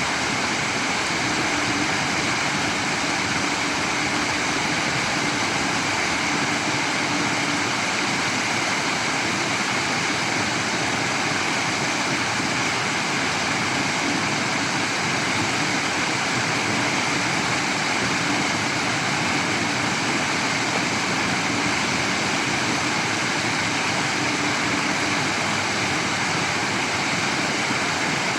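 Running water making a steady, unbroken rushing noise.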